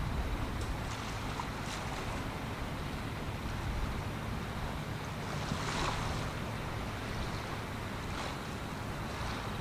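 Wind and small waves washing at the shore over a low steady drone from the passing container ship, with a slightly louder wash about six seconds in.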